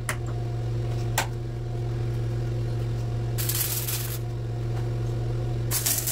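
MIG welder arc crackling on a car body's steel in two short bursts: one about a second long in the middle and a shorter one near the end. A steady electrical hum runs underneath.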